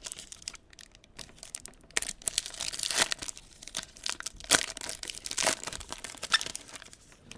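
Wrapper of a football trading card pack being torn open and crinkled in the hands: a run of irregular crackles and sharp snaps from about two seconds in, after quieter handling.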